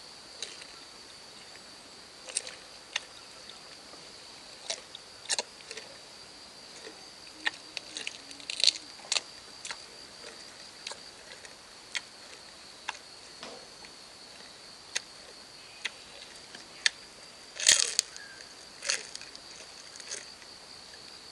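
Crisp crunching of deep-fried grasshoppers being bitten and chewed, in short irregular crunches every second or so, over a steady high-pitched insect chorus.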